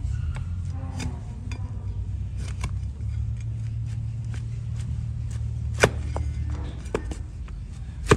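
A flat hoof-trimming blade cutting and shaving the overgrown horn of a donkey's hoof: a run of short crisp cracks and scrapes, with two louder sharp snaps, one about six seconds in and one at the very end. A steady low hum runs underneath.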